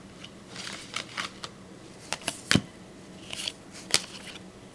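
Baseball trading cards handled and flipped through in the hand: short swishes of cards sliding over each other and sharp clicks of card edges, the loudest about two and a half seconds in.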